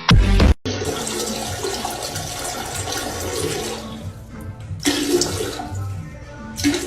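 Water rushing, then slowly fading over a few seconds, with two brief louder sounds later on.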